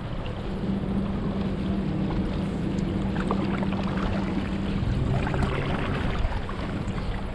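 Paddle-board paddling on open water: paddle blades splashing and water lapping, over a steady low hum and some wind on the microphone.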